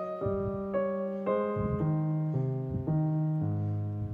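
Background piano music: a gentle melody of held notes, changing about every half second.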